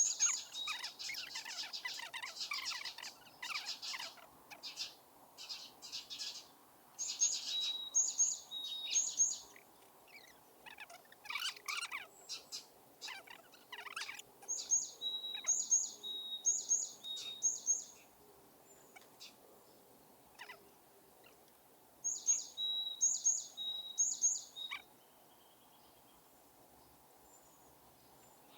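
Morning songbirds singing. One bird repeats a high two-note phrase three or four times in a row, about every seven seconds, with scattered chirps from other birds in between. The birds fall quiet near the end.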